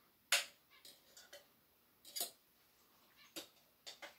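A fork clinking and tapping against a skillet and a plate as pasta and chicken are served: a handful of separate sharp clicks, the loudest about a third of a second in.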